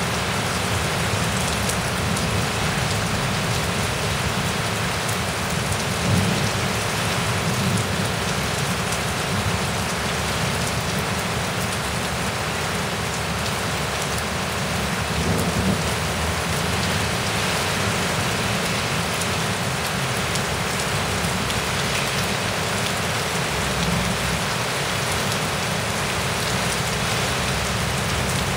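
Heavy rain pouring down steadily in a severe thunderstorm, with brief low rumbles about six seconds in and again near the middle.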